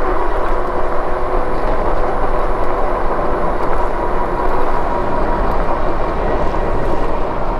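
Ride noise from a moving Lectric e-bike: a steady rush of wind and tyre noise with a faint steady hum, likely from the bike's hub motor.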